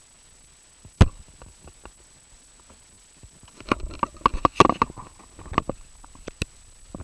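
Handling noise of an action camera: a sharp knock about a second in, then a cluster of clicks, scrapes and rustles, followed by a few scattered knocks, as the camera is picked up and moved through dry leaves and ferns.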